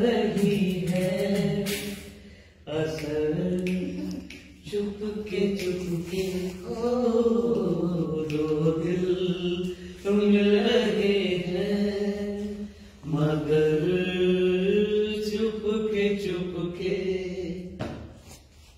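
A man singing unaccompanied, with no instruments. He sings about five long phrases of drawn-out vowel notes with a wavering vibrato, each separated by a short breath, and the singing fades away near the end.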